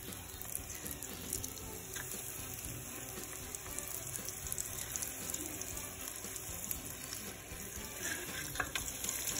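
Hot oil sizzling steadily in a Fry Daddy electric deep fryer as flour-coated chicken breast pieces fry.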